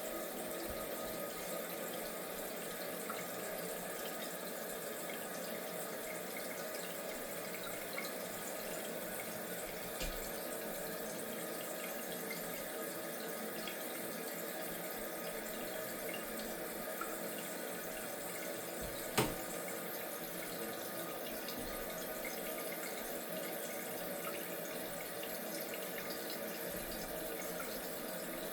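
Toilet tank filling through a newly installed fill valve: a steady rush of water into the tank, kept slow because the main water supply is only opened a small amount. A single sharp click sounds about two-thirds of the way through.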